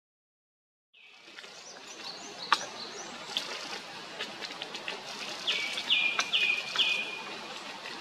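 Japanese thrush singing in woodland among other birds' calls. A phrase is repeated four times in quick succession about five and a half seconds in. The sound starts about a second in, and there is a single sharp click shortly after.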